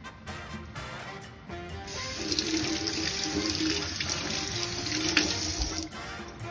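Kitchen faucet running water over a handful of tomatoes being rinsed by hand in a stainless steel sink: the water comes on about two seconds in and is shut off about four seconds later. Background music plays under it.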